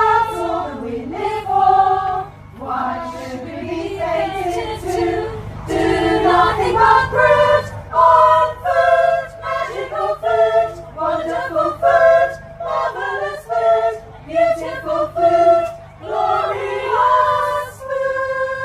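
Women's choir singing a cappella in harmony.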